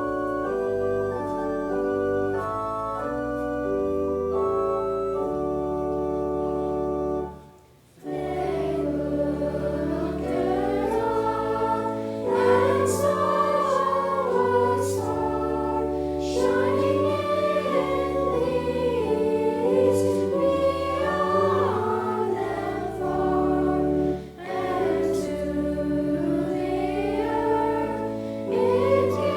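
A church organ plays alone, breaks off briefly about seven seconds in, then accompanies many voices singing a hymn in unison.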